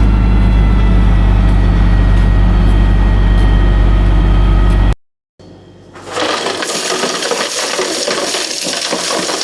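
Kubota KX040-4 excavator's diesel engine running steadily, cut off abruptly about five seconds in. After a short gap comes a dense, wet crackling and grinding rush of muddy rock and dirt being dumped.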